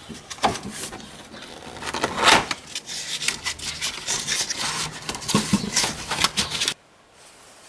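Rustling and scraping of a new cabin air filter being unpacked and handled, in irregular strokes that stop abruptly near the end.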